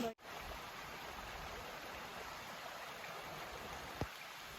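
Flowing stream rushing steadily, with one brief tap about four seconds in.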